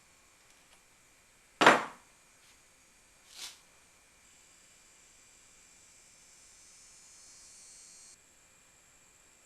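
A single loud knock about one and a half seconds in, a softer knock about two seconds later, then a faint steady high hiss lasting about four seconds that cuts off suddenly.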